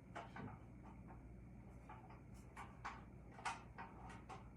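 Scattered light clicks and taps, about ten irregular ones, as table saw fence and rack-and-pinion parts are handled and fitted.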